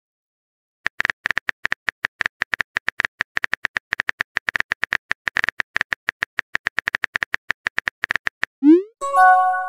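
Smartphone keyboard tap clicks, a rapid irregular run of taps as a text message is typed out. Near the end there is a quick rising swoop and a short chime as the message is sent.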